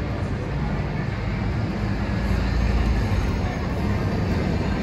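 City road traffic passing a busy intersection, a steady low rumble of engines and tyres that swells about halfway through as a vehicle drives close by.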